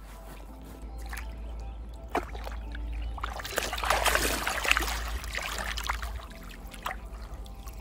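Lake water splashing and sloshing as a large carp is let go and swims off, loudest around the middle.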